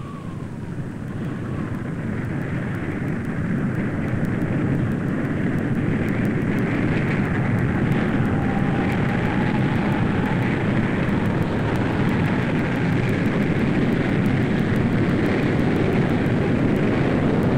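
Deep, rushing roar of a tornado's winds, building over the first few seconds and then holding steady.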